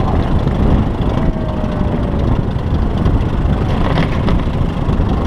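Steady engine noise and low wind rumble, picked up by a camera on a moving car-top landing platform directly beneath a Piper Cub.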